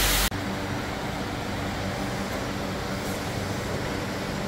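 A loud air hiss cuts off abruptly a moment in, leaving a steady low machine hum of the body shop.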